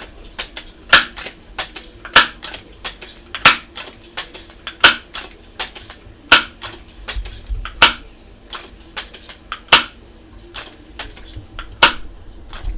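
Crosman 2200 Magnum multi-pump air rifle being pumped: a sharp clack each time the pump lever snaps shut, roughly every second and a half, with lighter clicks between as the lever swings open. The strokes come more slowly toward the end.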